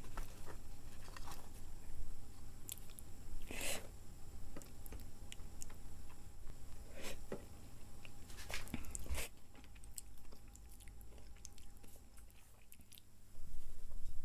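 Close-miked eating sounds: a person chewing with moist crackles, and a few louder crunchy bites.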